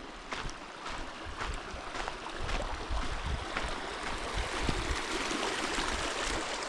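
Footsteps crunching on rough ground, about one a second, under a steady rush of wind on the microphone that grows louder partway through.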